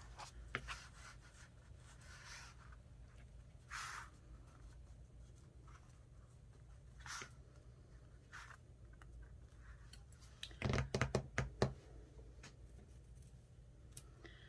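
Faint paper handling on a craft desk: soft rubbing and brushing of paper pieces, with a quick cluster of taps or clicks about three quarters of the way through.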